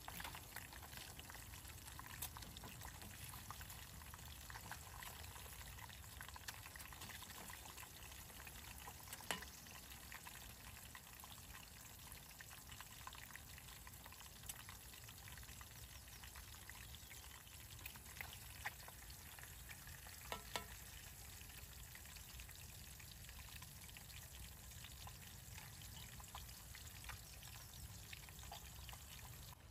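Faint, steady sizzling and crackling of food frying, with a few sharper clicks scattered through it.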